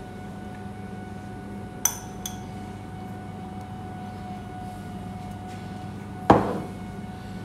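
Ceramic bowls clinking: two light clinks about two seconds in, then a louder knock near the end as a small bowl is set down on the stone worktop. A steady hum runs underneath.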